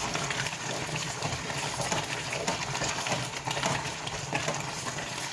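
Pot of beans and plantain potage bubbling as it cooks, a steady irregular bubbling with a low hum underneath.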